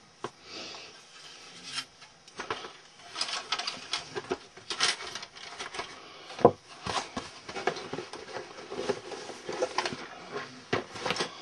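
Handling noise of plastic model car bodies and kit boxes being moved about: an irregular string of light clicks, taps and rubbing, with one sharper knock about two-thirds of the way through.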